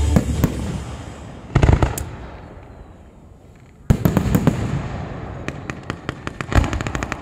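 Fireworks display: two shells burst with loud booms, about a second and a half in and about four seconds in, each dying away slowly, then a quick run of sharp crackles near the end.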